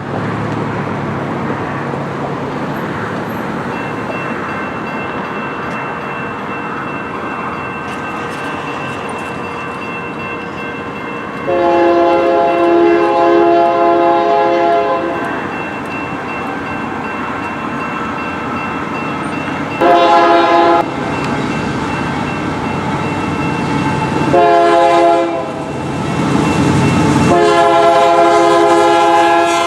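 Union Pacific freight locomotive's air horn sounding the grade-crossing signal: two long blasts, a short one, and a final long blast that is still going at the end. Under it, the crossing's warning bell rings steadily from a few seconds in. Near the end the train's rumble grows as it reaches the crossing.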